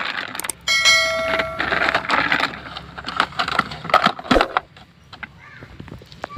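Plastic toy vehicles being handled, with rustling and clicking knocks and one sharper click about four seconds in. About a second in comes a short steady electronic tone lasting under a second.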